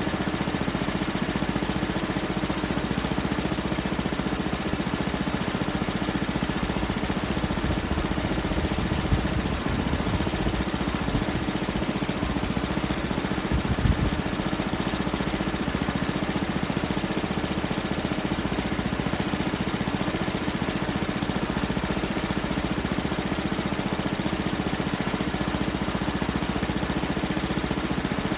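An engine running steadily at a constant speed, with a short knock about nine seconds in and another about fourteen seconds in.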